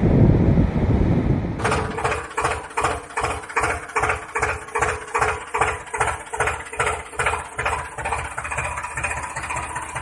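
Wind and surf on the microphone for the first second and a half, then an engine chugging in even beats, about four a second, settling into a steadier faster idle after about eight seconds. It is a tractor engine sound; the tractors in view are engineless toys.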